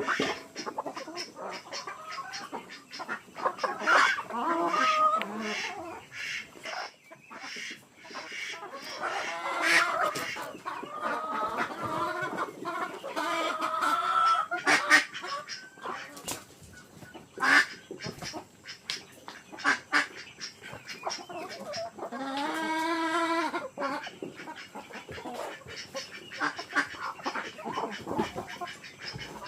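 A flock of chickens clucking and squawking, with many short calls and sharp clicks. One longer call with a wavering pitch comes about three-quarters of the way through.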